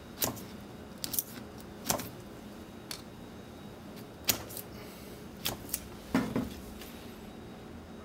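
Short, sharp scrapes and clicks of a screwdriver tip scraping the enamel coating off a microwave oven transformer's winding to check whether it is copper or aluminum; the winding proves to be aluminum. About ten irregular strokes, stopping about six and a half seconds in.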